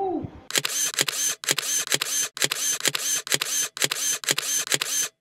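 Camera shutter clicks repeating at about two a second, then cutting off suddenly.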